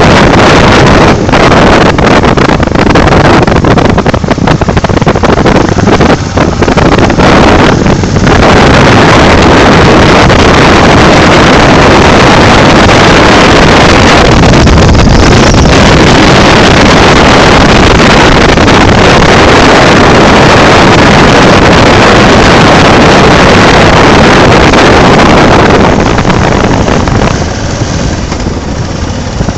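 Loud, distorted wind noise buffeting the microphone of a moving motorcycle, with the bike's running engine mixed in. The noise is steady at riding speed and eases off somewhat near the end.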